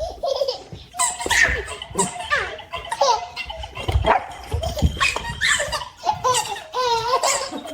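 A baby giggling and laughing in short bursts while a golden retriever puppy yips, with a few soft thumps partway through.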